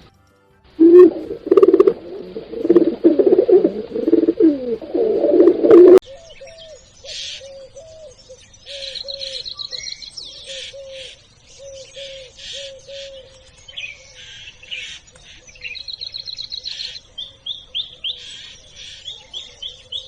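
A dove cooing loudly in low repeated phrases, then, after a sudden cut about six seconds in, small songbirds chirping and trilling high over an evenly repeated low note.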